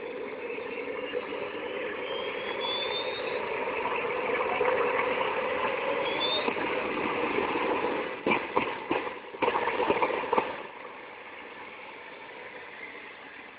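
Twin JetCat SPM-5 gas turbines of a large RC powerboat running, a continuous noisy rush with a high whine that glides in pitch twice in the first half. About eight seconds in the sound turns choppy and uneven for a couple of seconds, then settles to a lower steady level.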